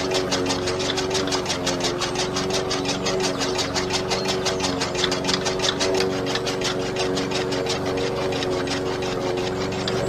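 Small electric motor driving a miniature model chaff cutter, running with a steady whine and an even, rapid clatter of about six to seven strokes a second as the blade chops green leaves.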